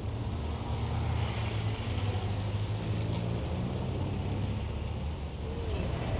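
Street traffic of cars moving slowly, heard as a steady low engine rumble with road noise. A brief click comes about three seconds in.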